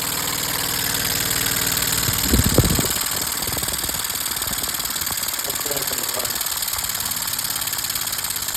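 3D-printed compressed-air piston motor running on about 45 PSI of air, exhausting in a fast, even train of puffs over a steady hiss of air. A brief louder low burst comes about two and a half seconds in.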